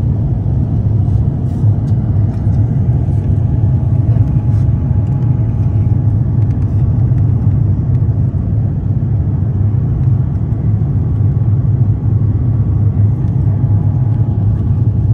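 Steady low rumble inside the cabin of an Airbus A350-900 in flight: its Rolls-Royce Trent XWB engines and the rush of air past the fuselage, heard from a window seat over the wing.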